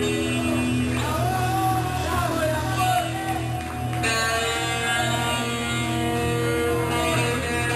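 Live rock band playing: drum kit, bass and guitar, with a voice over them and a wavering, bending melodic line through the middle.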